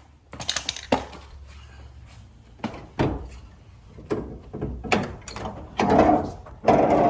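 A truck's hood latch and hood being worked: a string of sharp metal clicks and clunks, with louder clattering near the end.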